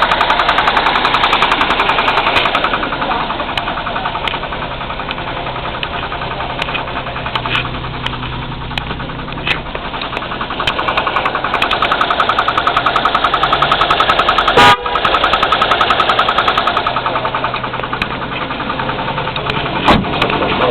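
Engine running with a rapid, even clatter, its level dropping for a while and then rising again. The clatter persists despite new connecting-rod bearings and adjusted valves, and its cause is unknown. A little past two-thirds of the way in, one very short, loud sharp sound cuts through, with a smaller one near the end.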